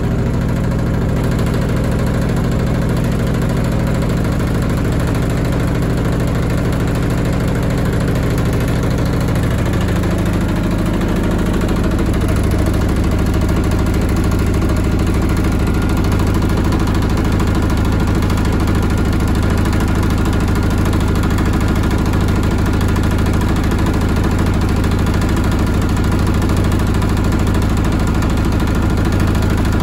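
Washing machine running with a loud, steady motor hum and drum rumble; the pitch shifts about ten seconds in as the drum changes speed.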